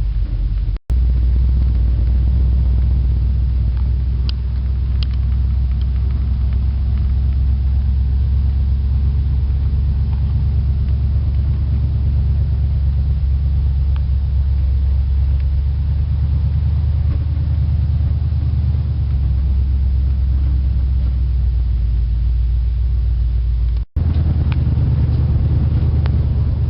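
A 350 small-block Chevy V8 with a Holley 650 carburetor idling with a steady low rumble. The sound cuts out briefly twice, about a second in and near the end.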